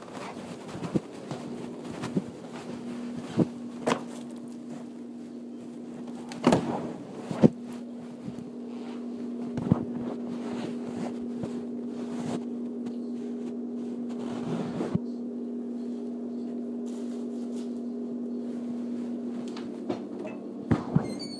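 A steady low hum at one pitch, with a few sharp knocks and clicks scattered over it; the loudest come about six and a half and seven and a half seconds in.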